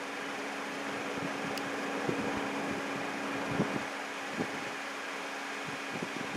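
Steady background hiss with a constant low hum, and a few soft knocks scattered through.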